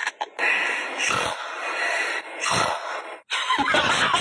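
A man coughing in a harsh, rasping fit with two heavier coughs, broken off near the end as music starts.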